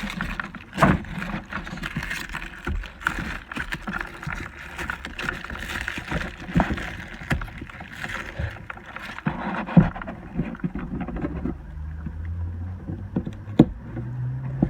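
Handling and rustling of packaging and plastic toy mini wheelie bins, with irregular sharp knocks and clicks as the parts are pulled out and moved about.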